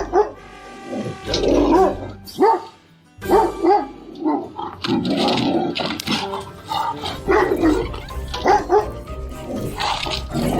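Dogs barking in short, repeated barks from several separate clips, over background music, with a brief near-quiet gap about three seconds in.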